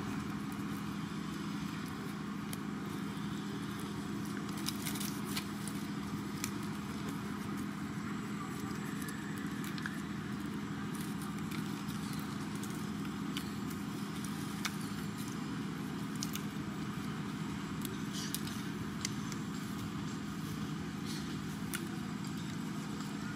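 A steady low hum, like a running engine, held at an even level, with scattered faint clicks and crackles over it.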